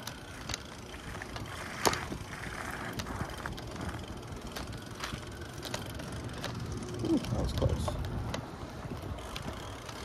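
Bicycle rolling over wet city pavement: a steady low road rumble with scattered clicks and rattles, the sharpest about two seconds in.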